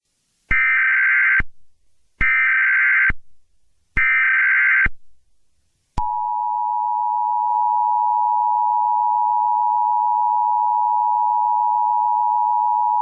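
Emergency Alert System tones: three short bursts of digital SAME header data about a second apart, then the two-tone EAS attention signal (853 and 960 Hz together) starting about six seconds in and holding steady.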